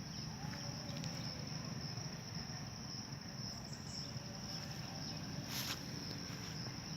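Insects trilling steadily at one high pitch, faint, with a single click about five and a half seconds in.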